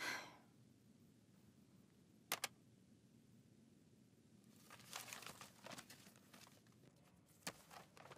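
A quiet room with a sharp double click about two seconds in as a corded telephone handset is set down on its base. Soft rustling and crinkling follows for a couple of seconds, then a single click near the end.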